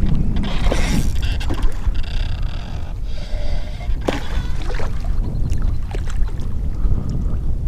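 Wind buffeting the microphone on a kayak, a heavy low rumble that runs throughout. Irregular short bursts of hiss and a few sharp clicks sound over it.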